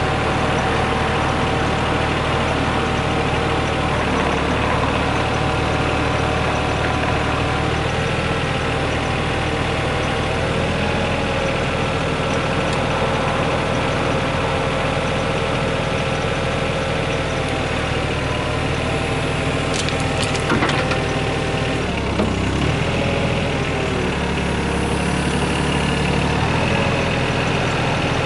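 Yanmar VIO20-1 mini excavator's diesel engine running steadily, its tone shifting every few seconds as the machine works, with a few sharp clanks about 20 seconds in.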